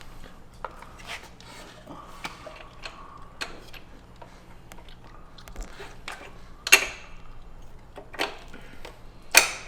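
Scattered clicks and knocks of metal bike parts and tools being handled during assembly, with two sharper knocks about seven and nine and a half seconds in.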